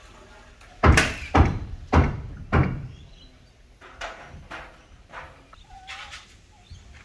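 Hammer blows on timber roof framing: four loud strikes about half a second apart, then a run of softer, evenly paced strikes.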